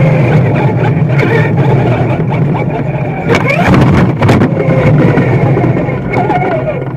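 Radio-controlled car driving on asphalt, recorded from a camera on its body: motor whine rising and falling over a steady rumble of tyres and wind. A cluster of knocks comes in the middle as the car tips up.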